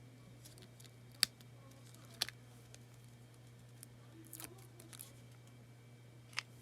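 About five short, sharp clicks and snips from handling craft materials at a table, irregularly spaced, over a low steady hum.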